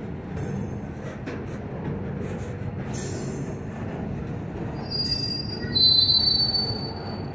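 Double-stack container freight train rolling past: a steady rumble of steel wheels on rail. About five seconds in, a high metallic wheel squeal rises over it and is the loudest part.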